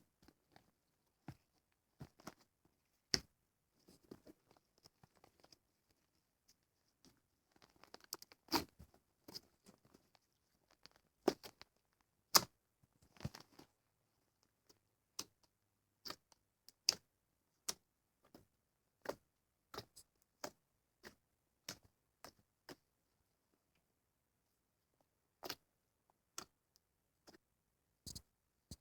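Slime being squeezed and poked, giving irregular sharp pops and clicks, some bunched in quick crackly clusters.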